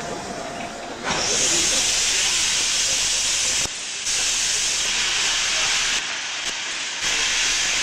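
Steam locomotive venting steam with a loud, steady hiss that starts suddenly about a second in. The hiss breaks off abruptly twice, briefly near the middle and for about a second near the end.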